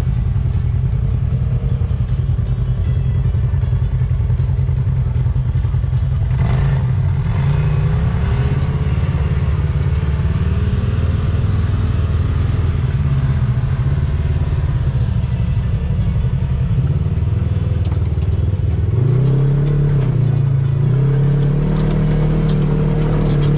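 Polaris RZR side-by-side engine running under way on a rough dirt trail, with scattered clicks and rattles; the revs rise and waver about three-quarters of the way through as it climbs.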